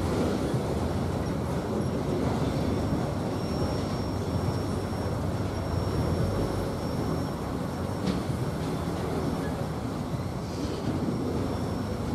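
Freight train of autorack cars rolling past a grade crossing: a steady rumble of wheels on rail, with the last car going by partway through.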